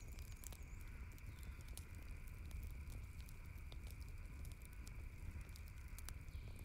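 Chicken and skewers sizzling faintly over glowing charcoal on a wire grill, with many small scattered pops and crackles. A low steady rumble runs underneath.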